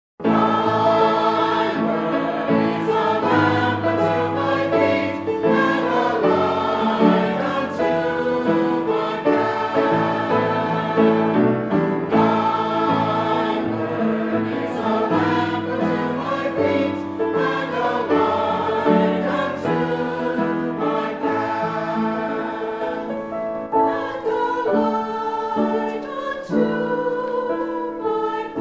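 A choir singing a church hymn, starting suddenly at the outset.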